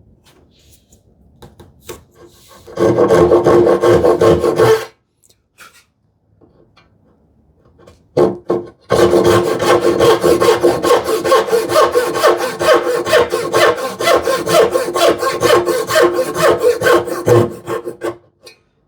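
Hand saw cutting wood with quick, rhythmic back-and-forth strokes: a short spell of about two seconds, then after a pause a longer spell of about nine seconds.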